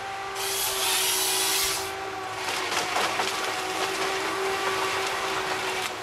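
Tigercat tracked forestry harvester working a log with its harvester head. A steady whine runs underneath, a harsh hissing burst lasts about a second from half a second in, and a few sharp knocks follow in the middle.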